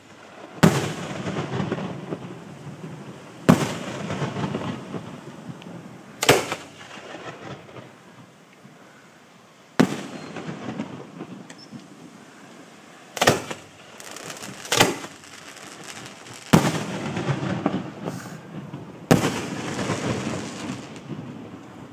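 Aerial fireworks display: about eight loud shell bursts a few seconds apart, each followed by a long rumbling, crackling tail.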